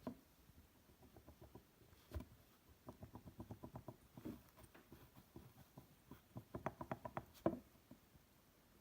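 Light clicks in quick even runs of about eight a second, with a few sharper knocks between them, the loudest near the end.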